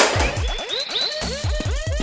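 Electronic dance-style background music with deep bass drum hits that drop in pitch, chirping synth glides over them, and a loud hit right at the start.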